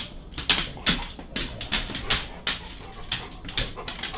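A dog panting in quick, noisy breaths, about three a second.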